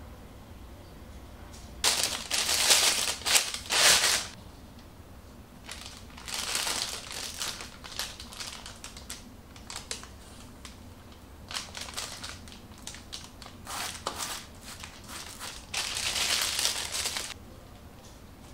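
A disposable plastic piping bag crinkling in several bursts as it is handled and filled with thick chocolate batter, with a silicone spatula scraping against it.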